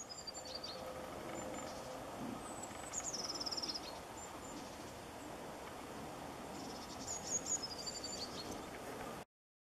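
Small songbirds singing high, thin phrases over a steady outdoor hiss: a falling run of notes at the start, a quick trill about three seconds in, and more falling phrases near the end. The sound cuts off abruptly just before the end.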